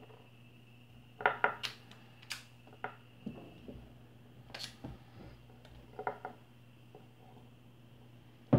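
Irregular metallic clicks and knocks as the metal housing and rotor shaft of an electric fan motor are handled and fitted together, the loudest knock near the end, over a steady low hum.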